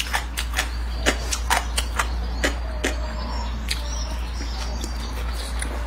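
Close-miked eating sounds: a person chewing fried rice noodles and ham slices, with many sharp mouth clicks and smacks, over a steady low hum.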